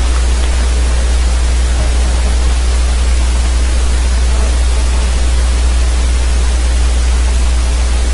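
Steady loud hiss with a constant low hum underneath and nothing else: the background noise of the recording setup's microphone and electrics.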